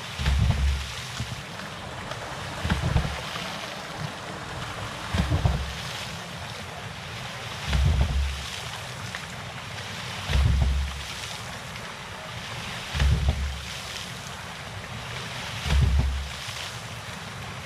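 Hydraulic ram pump cycling, with a deep thump about every two and a half seconds as the waste valve slams shut, over a steady rush of flowing water.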